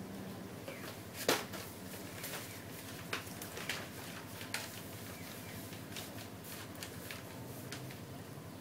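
Inside a Tosa Electric Railway 700-series streetcar: a steady low rumble with scattered sharp clicks and rattles, the loudest about a second in.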